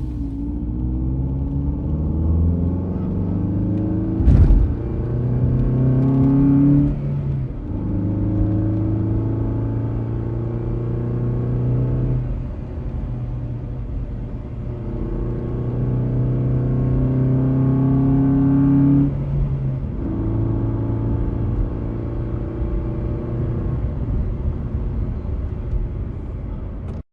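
Car engine accelerating through gear changes: its pitch climbs slowly, then drops back at each shift, four or five times. There is one sharp knock about four seconds in.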